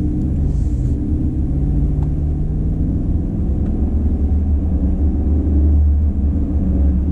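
A Chevrolet Silverado's 6.2-litre V8 on its stock exhaust, heard from inside the cab as a low steady drone over road rumble. The engine note slowly climbs in pitch as the truck accelerates.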